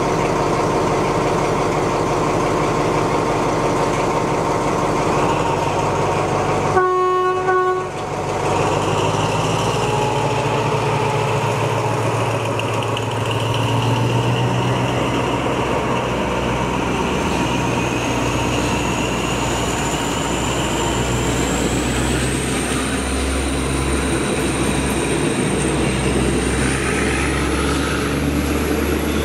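Diesel locomotive running under load, sounding its horn once, briefly, about seven seconds in. Afterwards the low engine note grows heavier and a high whine rises slowly in pitch over the last ten seconds as the train gathers speed.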